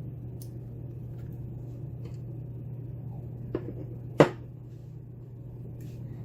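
Small metal clicks from a lock plug and its pin parts being handled, with one sharp click about four seconds in, over a steady low hum.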